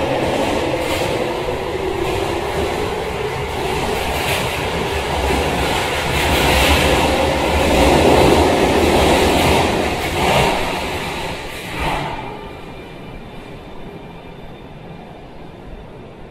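Toei Shinjuku line subway train running along an underground station platform: a steady rumble with a few wheel clacks and a motor whine that falls in pitch near the start, loudest about eight seconds in. About twelve seconds in it cuts off abruptly to a much quieter station hum.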